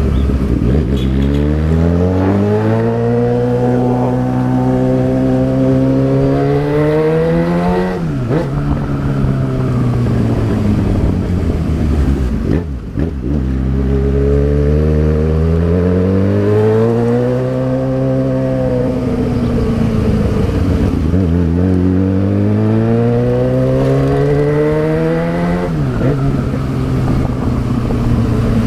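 Yamaha XJ6's inline-four engine under way, its pitch climbing for several seconds at a time as it accelerates. The pitch drops sharply at each gear change, about eight seconds in and again near the end, with a brief dip and a fresh climb about halfway through.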